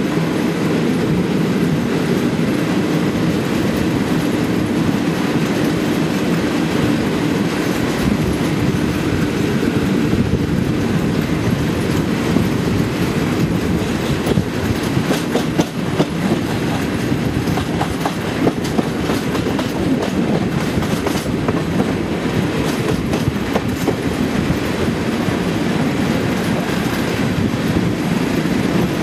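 Class 37 diesel locomotive's English Electric V12 engine running under power, a steady heavy drone heard from the coach right behind it, with wheel clatter over rail joints, the clicks thickest in the middle stretch.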